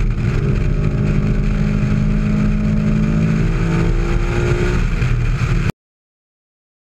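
Kenny Brown GT4-RS Mustang's V8 engine running hard under full throttle, its pitch climbing slowly as it accelerates. The sound cuts off abruptly a little over five seconds in.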